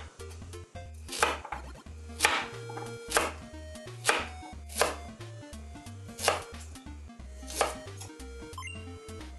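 Chef's knife slicing a raw carrot into rounds on a bamboo cutting board: about seven sharp cuts at uneven intervals, each ending in a knock of the blade on the board.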